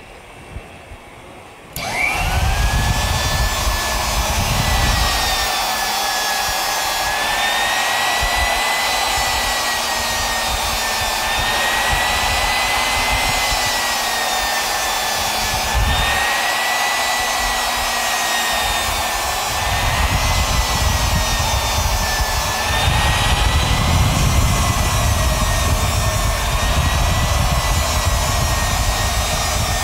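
Crankshaft journal belt polisher starting about two seconds in and then running steadily, its motor and 320-grit abrasive belt working against the slowly spinning crankshaft journals. It gives a high whine that slowly wavers in pitch over a rumble.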